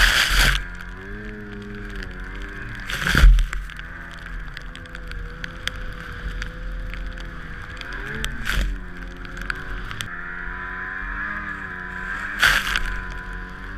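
Snowmobile engine running under load through deep powder, its pitch rising and falling with the throttle. Several loud rushes of noise come as snow sprays over the machine, one about three seconds in and others later.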